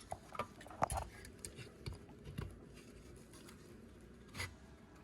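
Scattered light clicks and knocks of parts being handled during assembly, the loudest about a second in.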